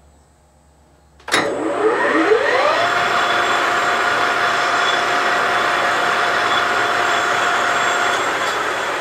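Webb lathe's three-phase spindle motor switched on at 1800 rpm, fed by a Phase Perfect phase converter. It starts with a sudden click, its whine rises for about a second and a half as the spindle comes up to speed, then it runs steadily. It spins up with no hesitation, a sign that the converter is handling the start easily.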